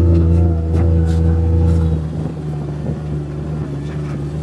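Side-by-side utility vehicle's engine running steadily under throttle. About halfway through, the engine note drops and becomes quieter and rougher.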